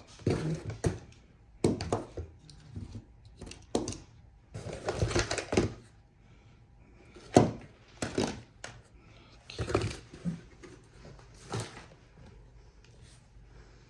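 Irregular knocks, clicks and short clatters of hard objects being handled and set down, about a dozen separate bumps spread over several seconds.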